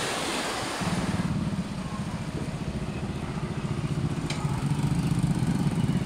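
Small motorbike engine running at a steady pitch with a fast even pulse, coming in about a second in after a short stretch of hiss and slowly growing louder.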